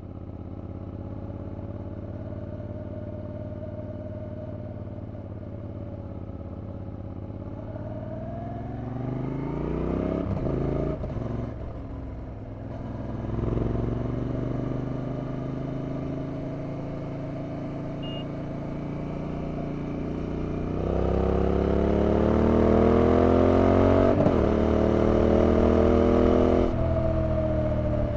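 Yamaha TDM 850's 270-degree parallel-twin engine on the move. It runs at a steady note, then revs climb from about eight seconds in, with two quick gear changes a few seconds later. From about two-thirds through it gets louder, climbing through another gear change and rising again before the throttle closes near the end.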